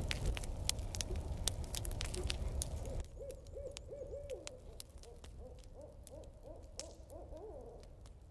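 An owl hooting in a series of short hoots, a quick run of about five about three seconds in, then evenly spaced ones roughly two a second, over faint scattered clicks. Before it, a louder noisy stretch with crackling cuts off abruptly.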